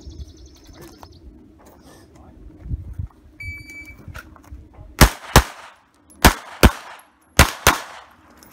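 A shot timer's start beep about three seconds in, then a Glock 17 Gen 4 9mm pistol firing six shots in three quick pairs, two rounds on each of three targets.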